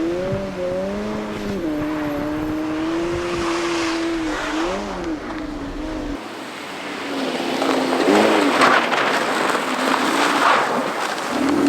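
Suzuki Swift Sport (ZC31S) rally car's 1.6-litre four-cylinder engine revving hard on a snow stage, its pitch rising and dipping with throttle and gear changes. About six seconds in, the engine note drops back and a rough hiss of tyres churning and sliding on snow takes over.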